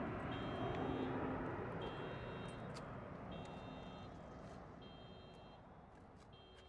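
Jet airliner engine noise dying away steadily as the aircraft moves off. Over it, a short high electronic beep repeats about every one and a half seconds.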